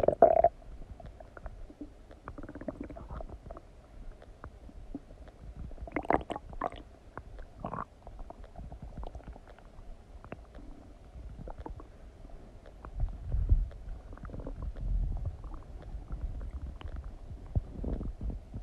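Human stomach gurgling and rumbling while digesting a meal of donuts: scattered small gurgles, a run of sharper, higher gurgles about six to eight seconds in, and a deeper low rumble around thirteen to sixteen seconds in.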